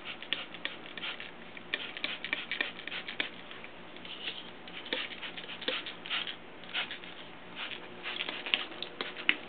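Hand trigger spray bottle squirting water into a rubber-lined rock tumbler barrel in many short spritzes, coming in quick runs. The water rinses grit off the barrel walls back down onto the load of stones.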